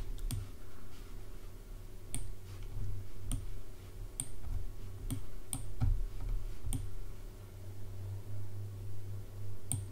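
Irregular single clicks of a computer mouse and keys, about a dozen over the stretch, over a steady low hum.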